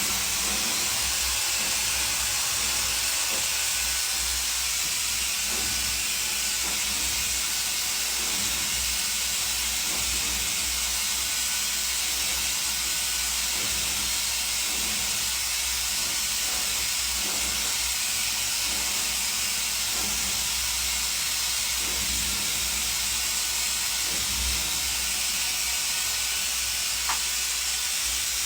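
Hair dryer blowing steadily, an even airy hiss.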